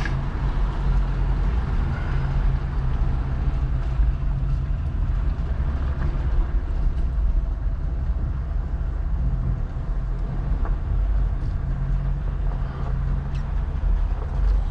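Off-road vehicle's engine running steadily under way, with a steady low hum and road noise, and a few faint clicks from the vehicle moving over the trail.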